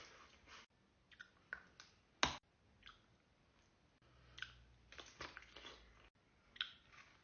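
Faint, irregular small clicks and crackles, with one sharper, louder click a little over two seconds in.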